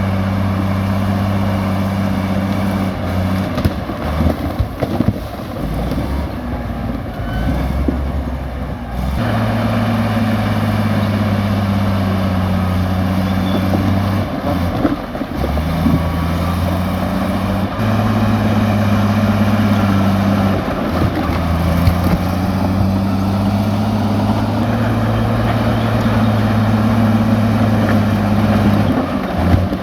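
Komatsu bulldozer's diesel engine working under load, its pitch shifting as it pushes, with irregular clattering from about four to eight seconds in.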